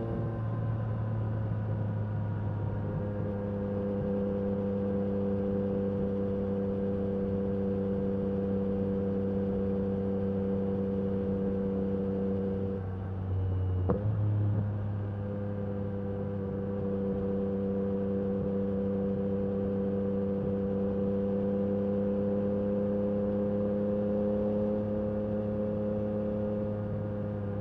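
Yamaha MT-09 SP's inline three-cylinder engine through an Akrapovic carbon exhaust, running at steady cruising revs. About halfway through, the note dips briefly with a sharp click, then comes back and creeps slowly higher.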